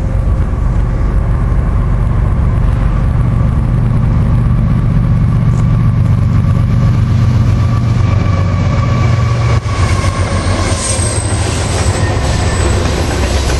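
Freight train passing close by, led by GE diesel locomotives (a Union Pacific ES44AC and a Norfolk Southern Dash 9-40CW). The engines' loud low drone builds as they approach and passes about ten seconds in. Then come the rumble and clatter of autorack cars rolling past, with thin squealing tones from the wheels.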